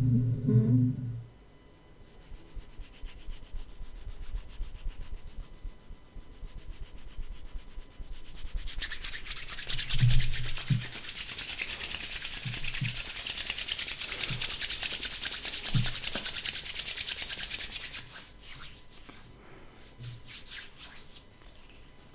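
Hands rubbed together in fast, even strokes with a dry, hissing rasp. The rubbing swells louder for about ten seconds in the middle, then slows into separate scratchy strokes near the end. There are a few soft low bumps, and a short low rumble right at the start.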